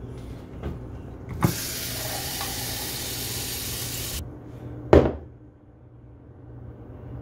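Kitchen tap running into a drinking glass held under it for about three seconds, then cutting off suddenly. About a second later comes a sharp knock, the loudest sound, as the glass is set down on the countertop. A low steady hum lies underneath throughout.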